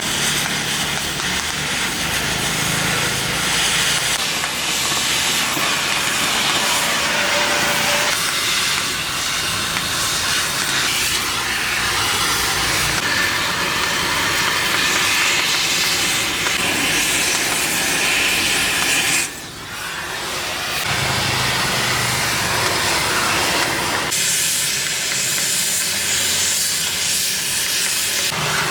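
Steady, loud hiss of a gas cutting torch burning through scrap steel, with a brief break about two-thirds of the way through.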